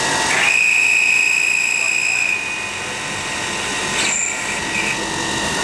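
MSI ChamferMate chamfering machine's turning head cutting a chamfer on the end of a hand-fed metal bar: a loud, high-pitched cutting squeal for about two seconds, then quieter running, with a brief second squeal about four seconds in.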